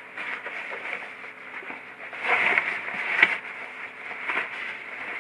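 Nylon backpack fabric rustling and scraping as it is handled. It grows louder about two seconds in, where the compartment's zipper is pulled closed.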